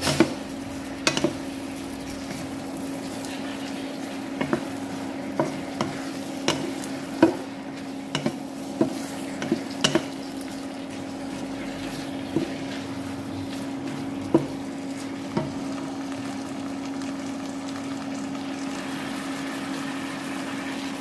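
Beef, betel leaves and onion stir-frying in a stone-coated wok: a spatula knocks and scrapes against the pan at irregular intervals over a light sizzle, the knocks thinning out near the end. A steady low hum runs underneath.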